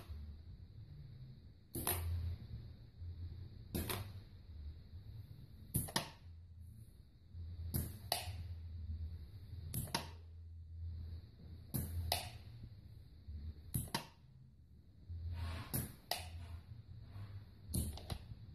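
Pneumatic animatronic head's air valves and cylinders snapping and hissing as its eyelids and jaw move, a sharp click or quick pair of clicks about every two seconds, some with a short puff of air. A low hum comes and goes underneath.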